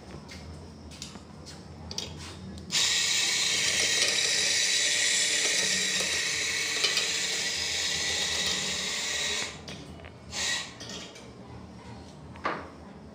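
Electric espresso grinder running for about seven seconds as it grinds coffee into a portafilter, starting and cutting off abruptly. A couple of short knocks follow near the end.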